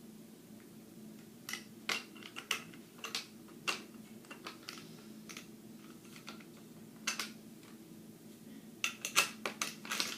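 Scattered light clicks and taps of pull-up bar parts being handled and fitted together, in small groups with a dense cluster near the end, over a low steady hum.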